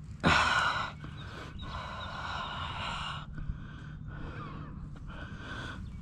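Heavy breathing: a loud, sharp, breathy exhale near the start, then two longer, softer breaths.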